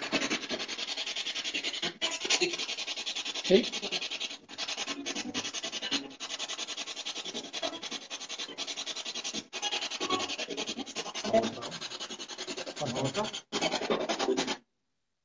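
Steady crackling static hiss, like an untuned radio, broken by several brief dropouts and a sharp click, cutting off suddenly near the end.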